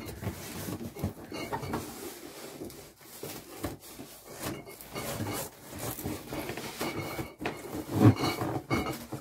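Cardboard box and packaging being handled and pulled at by hand while a box of lager is worked out of it: irregular rustling, scraping and knocks, with the loudest knock about eight seconds in.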